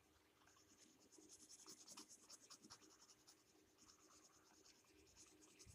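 Faint scratching of a pencil shading on paper in quick, short strokes, busiest from about half a second in until near the end.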